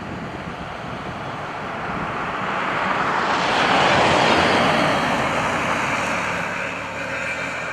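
A vehicle passing close by, its tyre and road noise swelling to a peak about halfway through and then fading away.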